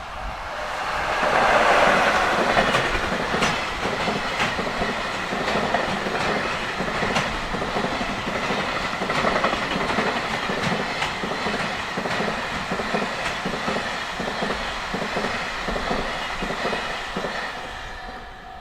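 JR Freight train passing close by. The loudest part comes about two seconds in as the locomotive goes by, then a long string of freight wagons follows with a steady clickety-clack of wheels over rail joints, fading near the end.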